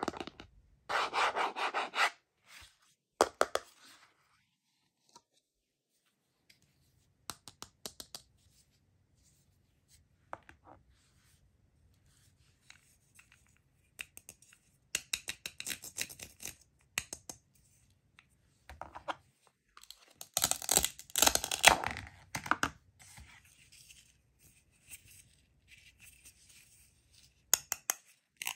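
Plastic toy food and a plastic cutting board being handled, with scattered clicks, taps and rubs. About two-thirds of the way through comes the loudest sound, a scratchy rip: the hook-and-loop (Velcro) pad holding the two halves of a toy onion tearing apart as they are pulled open.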